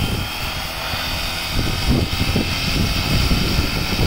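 FlyWing FW450 V3 electric RC helicopter running its main rotor at about 80% head speed while still on the ground: a steady high motor whine over the whoosh of the blades, with a gusty low rumble on the microphone.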